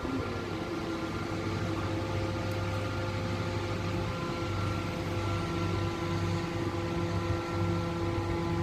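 Hydraulic static pile driver's engine and hydraulic pump running steadily, a continuous drone with a steady whine over it and no hammer blows.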